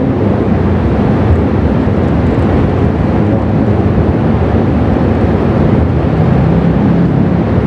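A mosque congregation's many voices blending into a dense, steady murmur, with no single voice standing out.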